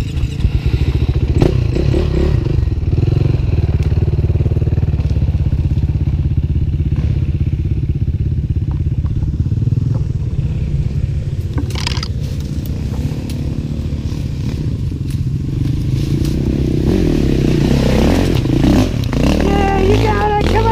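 Suzuki DR-Z400S single-cylinder four-stroke dirt bike engine running steadily under load, with a sharp knock about twelve seconds in. Near the end the engine note rises and falls as the throttle is worked.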